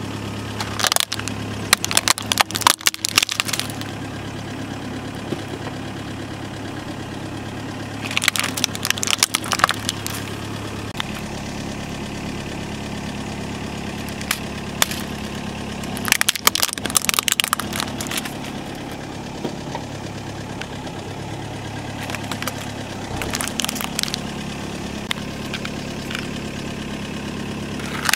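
A car's tyre rolling over hollow plastic toys and crushing them: several bursts of cracking and crunching, roughly every seven seconds, over the car's engine idling steadily.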